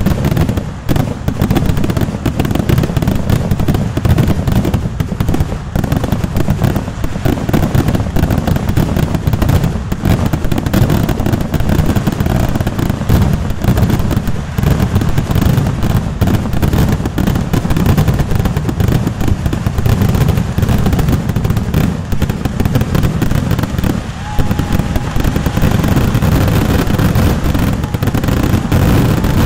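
Kerala vedikettu fireworks: a dense, unbroken barrage of firecracker blasts that run together into a continuous loud crackle with deep booms underneath.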